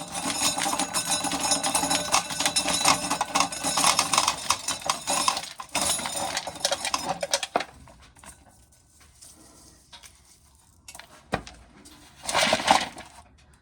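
Dry corn kernels being shelled off the cob and rattling into a metal coffee can: a dense run of fast clicks that stops about seven and a half seconds in, followed by two short rattles near the end.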